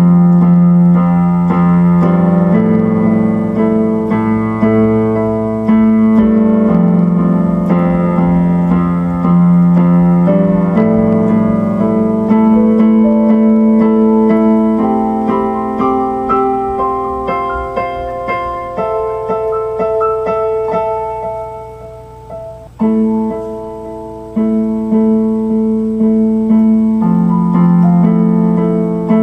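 Electronic keyboard played solo in a piano voice: slow, held chords with a melody line on top, fading briefly about three-quarters of the way through before a new chord comes in.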